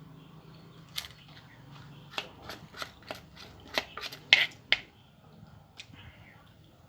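A quick run of sharp clicks and clinks, about a dozen in a few seconds and loudest near the middle, from kitchen utensils and dishes being handled.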